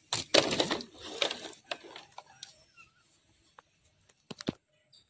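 Handling noise from a cracked smartphone being turned over and worked in the hands: a scraping rustle in the first second and a half, then a few sharp clicks and taps.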